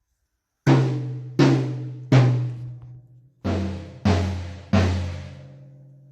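Drum-kit toms fitted with Moongel damper pads, struck one at a time: a higher tom hit three times, then a lower tom hit three times. Each stroke rings briefly with a clear pitch and fades.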